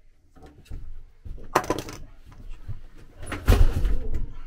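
Knocking and scraping of wood being handled and shifted against wooden fittings: a short bout about a second and a half in, then a louder, heavier one about three seconds in.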